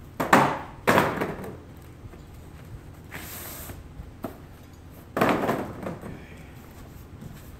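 Cardboard packing pieces being pulled out of a shipping carton and handled: three sudden scraping thuds, two in quick succession near the start and one about five seconds in, with a brief lighter rustle around three seconds.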